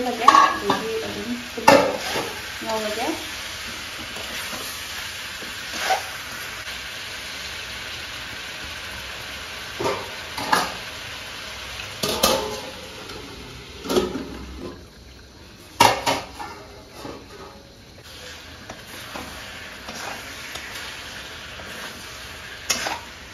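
Metal slotted spatula stirring and scraping chicken curry with potatoes and tomatoes in an aluminium kadai. A steady frying sizzle runs under it, with about nine separate scrapes and clanks of the spatula against the pan.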